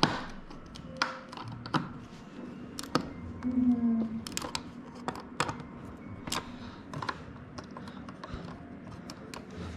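Irregular light clicks and taps, about one or two a second, with a few faint tones in the background.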